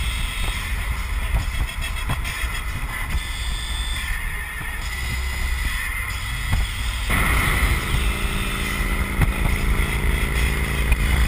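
Wind rush and road noise in an open-top convertible on the move, with a heavy low rumble. About seven seconds in, the noise grows louder and fuller.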